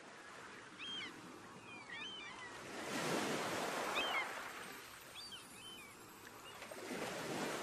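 Sea waves washing in, with two slow surges about four seconds apart, and short chirping bird calls over them.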